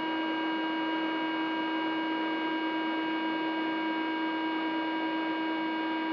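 Evidential breath-test instrument sounding one steady tone while a person blows hard into its mouthpiece, over the rush of the breath. The tone shows that the machine is taking the second breath sample.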